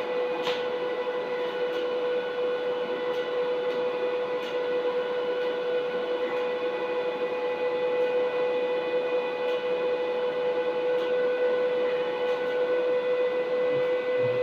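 TIG welding a stainless steel handrail joint: the welder and arc give a steady whine over a constant hiss, with a few faint ticks near the start.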